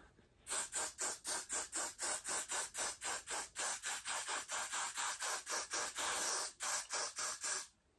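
Hand-pump spray bottle being pumped rapidly, about four short hissing sprays a second. The spraying stops shortly before the end.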